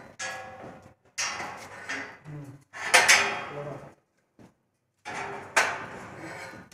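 Steel rolling shutter and its spring barrel rattling and clanking in irregular bursts as the barrel is levered round with long steel bars to tension the springs. The loudest clatter comes about three seconds in.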